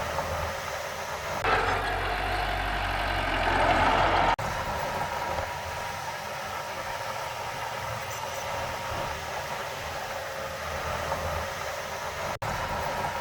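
Diesel engine of heavy earth-moving machinery running steadily, louder for about three seconds near the start before dropping back abruptly.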